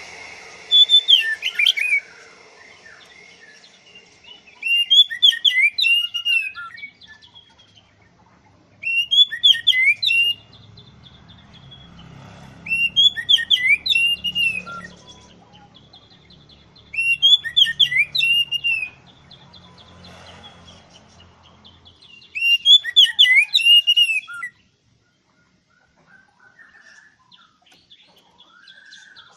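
Oriental magpie-robin (kacer) singing: six loud phrases of quick, rising and falling whistled notes, each a second or two long, repeated roughly every four seconds.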